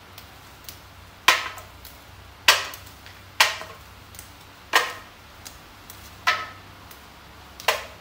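Green soybean pods being picked off their stems by hand: six sharp snaps, about one every second or so, each dying away quickly.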